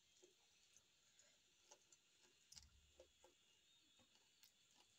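Near silence with faint, scattered clicks and ticks of a child eating rice by hand from a metal plate, with a soft low bump a little past halfway.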